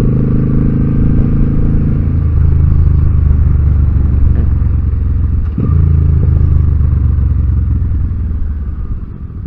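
Motorcycle engine running steadily under load. It breaks off briefly about five and a half seconds in as the rider shifts gear, then eases off near the end.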